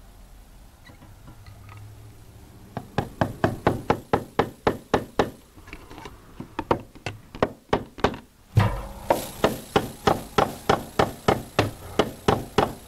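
Hammer driving a small trim nail through vinyl soffit into hard wood. Quick, light blows at about four a second start about three seconds in, with a short break just over halfway.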